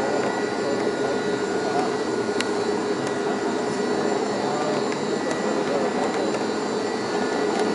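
Steady mechanical whirring with a few faint high tones and an occasional small click, the noise of the open cable lift running in the volcano's shaft.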